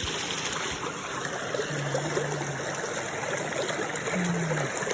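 Steady rush of flowing water, with two short low hums about two and four seconds in.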